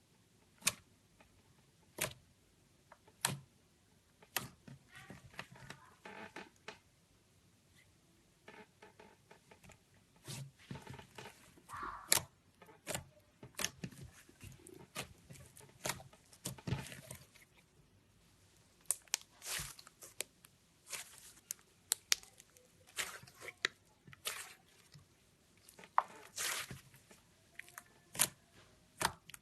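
Slime being squeezed and stretched by hand, with sharp clicking pops of trapped air at irregular intervals and short wet, squishy stretches in between.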